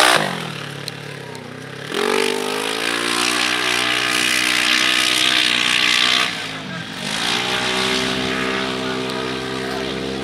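Side-by-side off-road buggy's engine passing and pulling away under throttle. Its pitch falls as it goes by, then jumps up and climbs about two seconds in. The revs fall briefly around six to seven seconds in, then rise again.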